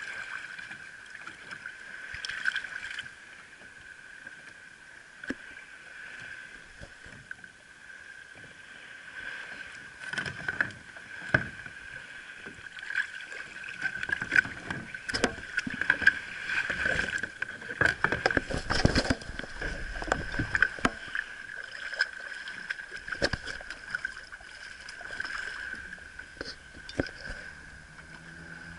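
Shallow water splashing and lapping around a plastic sit-on-top kayak, with scattered knocks and clatters that are busiest through the middle of the stretch. A steady high whine runs underneath.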